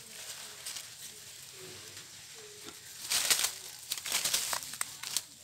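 Dry leaf litter and brush crackling and rustling as it is pushed through and grabbed at, with loud bursts about three seconds in and again a second later.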